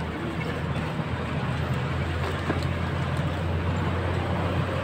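Steady low engine drone of nearby road traffic, with a few faint clicks over it.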